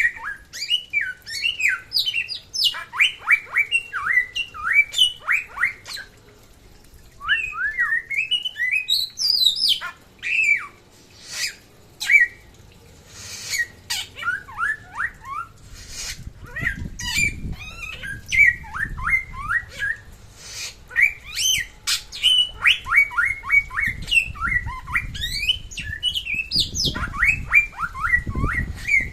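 Red-whiskered bulbul (samyong) singing continuously: quick phrases of short, clear whistled notes that slide downward, with brief pauses between phrases.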